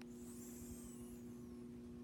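Quiet pause between snores: a sleeping person's breath fades out as a faint high hiss with a thin whistle, over a steady low electrical hum.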